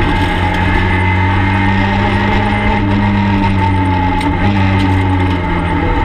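Peugeot 208 R2B rally car's naturally aspirated 1.6-litre four-cylinder engine running hard at speed, heard from inside the stripped cabin. The engine note climbs gently, then eases off and shifts slightly near the end.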